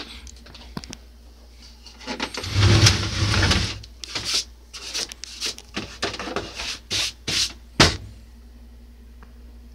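Hand rubbing and scraping over the plastic back cabinet of a Toshiba CRT TV/VCR combo: a longer rub about two seconds in, then several short scrapes, ending in a sharp knock near the end.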